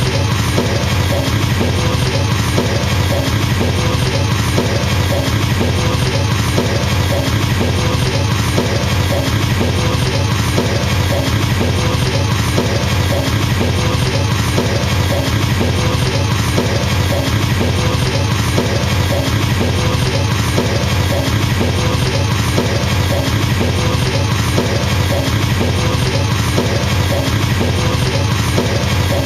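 Drum kit double-bass drumming: two kick-drum pedals struck in a very fast, even stream, unbroken and at a steady level.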